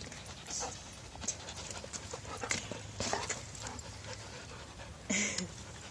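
Dogs panting, with scattered rustling and a brief louder sound about five seconds in.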